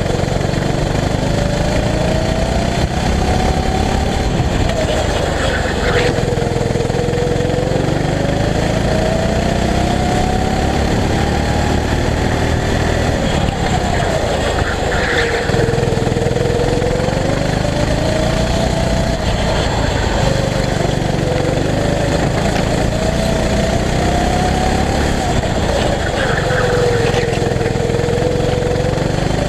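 Go-kart engine from onboard the kart, its pitch climbing and falling again and again as it accelerates out of each corner and drops off for the next, over a steady low rumble.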